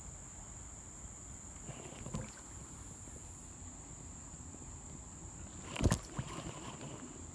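Steady high-pitched chirring of crickets, with a sharp knock about six seconds in and a fainter one around two seconds in.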